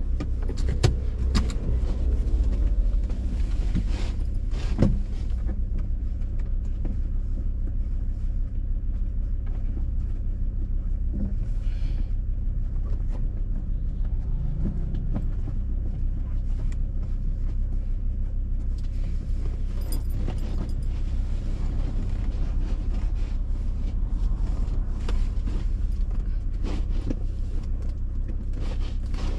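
Vehicle engine running steadily with a low, even hum. A few sharp clicks and knocks come in the first five seconds.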